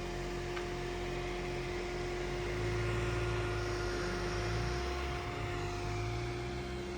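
Vehicle engine running while driving, its low pitch shifting a little, with a steady hum alongside.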